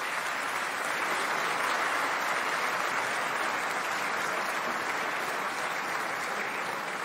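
Large audience applauding, a dense, steady clapping that eases off slightly near the end.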